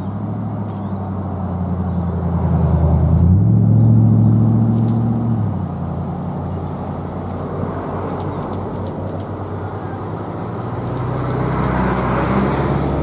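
Diesel railmotor engine pulling away. Its low note steps up in pitch and gets louder about three seconds in, eases back to a steadier note a couple of seconds later, then swells again near the end with rising wheel-on-rail noise as the two-car set draws closer.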